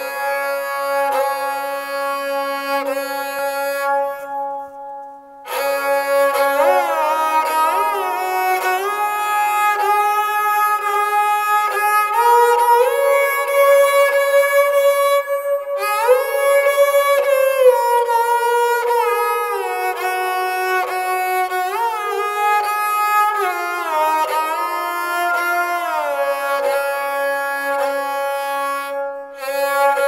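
Dilruba-type bowed Indian string instrument with arched metal frets and sympathetic strings, played with a bow: a slow melody with notes that glide smoothly up and down into one another. It breaks off briefly about five seconds in, then resumes.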